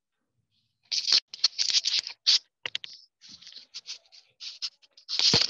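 A run of quick, irregular scratchy rustles and light taps of something being handled, starting about a second in, with one louder rustling thump near the end.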